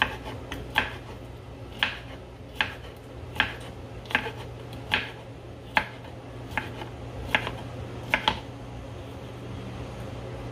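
A kitchen knife chopping a cucumber on a wooden cutting board: a sharp knock each time the blade comes down through the cucumber onto the board, about one a second.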